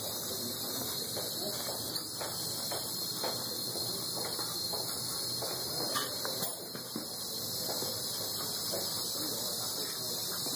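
Two HS-311 hobby servos, modified for continuous rotation, whirring steadily as they drive a small two-wheeled robot across a tile floor, over a steady hiss, with a few faint clicks.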